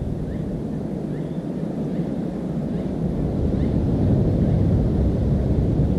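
Wind buffeting the camera microphone: a steady low rumble that gets a little louder about halfway through.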